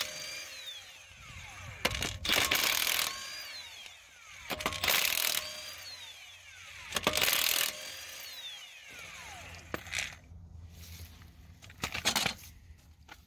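Cordless impact wrench with a 19 mm socket hammering on a car's wheel lug nuts to loosen them, in a string of short bursts about two seconds apart. Each burst is followed by a falling whine as the motor spins down.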